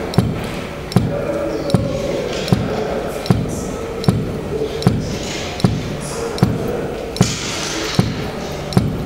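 Bass drum pedal working with no foot on it, its felt beater knocking against a wall in a steady beat, about one knock every three-quarters of a second.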